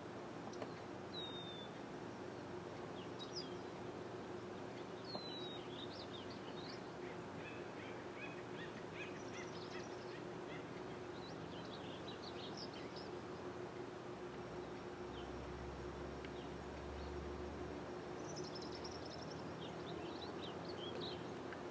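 Small birds chirping and twittering off and on, with a few short falling calls, over a faint steady hum and a brief low rumble partway through.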